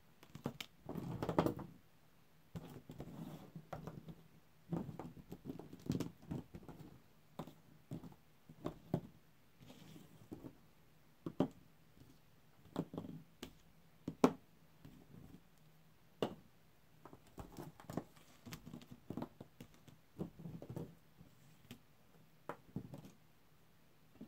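Small plastic action figures picked up and set down on a tabletop: irregular light clicks and taps with brief sliding scuffs, and one sharper tap about halfway through.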